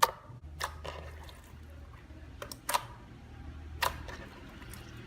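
Clear slime being handled, making several sharp wet clicks and pops.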